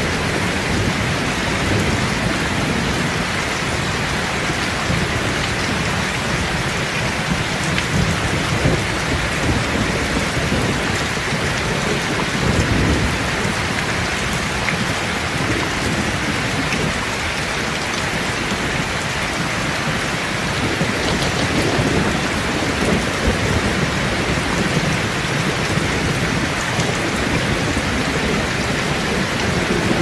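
Heavy rain pouring steadily, with low rumbles of thunder swelling and fading several times, the strongest about halfway through.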